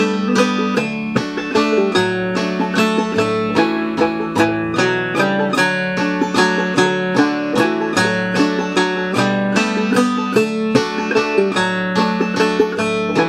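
Five-string banjo in D tuning (aDF#AD) played clawhammer style, picking out a waltz melody in D in an even three-time rhythm, over a backing guitar track.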